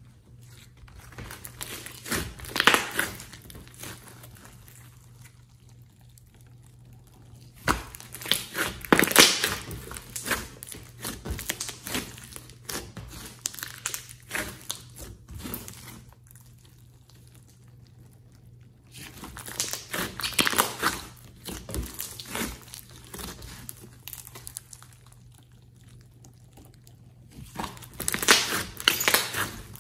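Hands squeezing, folding and stretching a large lump of clay-mixed slime: spells of dense wet crackling and popping with quieter pauses between, four times over.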